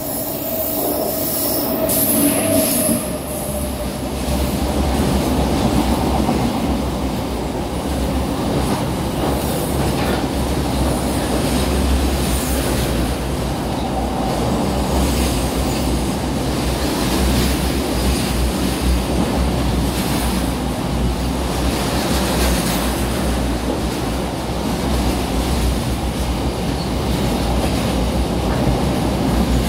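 Container freight train passing close by: the locomotive comes in, then a long string of container wagons rolls past with a steady heavy rumble and the clicking of wheels over the rail joints.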